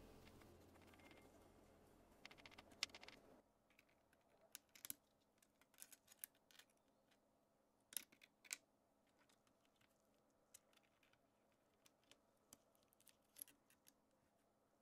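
Faint, scattered clicks and light taps of MacBook aluminium case parts being handled and test-fitted together. Soft background music runs underneath at first and cuts off about three seconds in.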